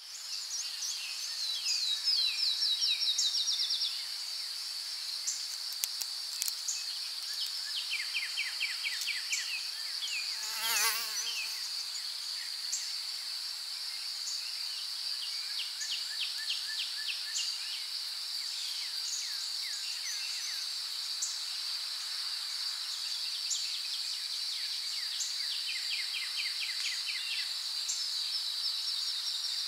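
Summer insect chorus: a steady high-pitched drone with bouts of fast, rhythmic chirping trills over it. About ten seconds in, a wavering buzz of a flying insect passes close for a second or two.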